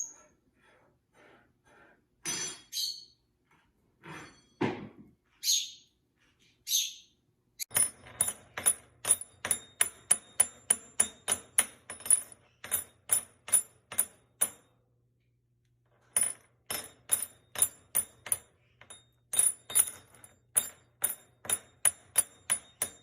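A pet parrot gives a few short high whistles and chirps. Then comes a long run of sharp, ringing taps, about three a second, which stops for a second and a half midway and then starts again.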